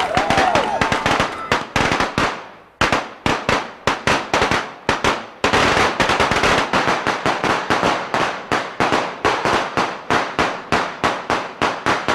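A string of firecrackers going off in fast, crackling runs of bangs. It fades off briefly about two and a half seconds in, then starts popping again in quick bursts.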